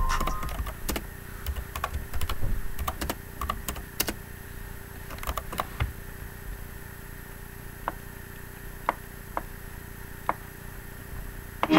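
Irregular clicking of computer keys, a few quick presses in the first half and only occasional ones later, over a faint steady hum.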